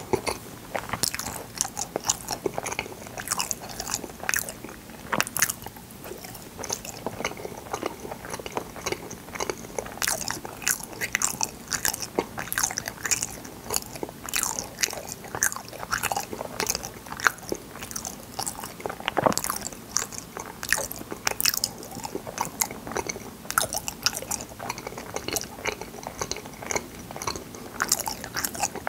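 Close-miked biting and chewing of colourful fruit yanggaeng (sweet bean jelly): a steady stream of sharp, wet clicks and crunches.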